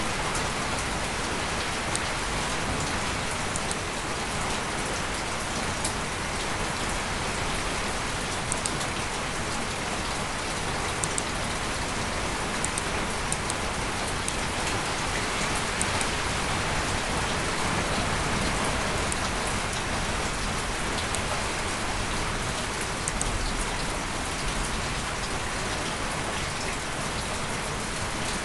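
Steady, even hiss with faint scattered ticks.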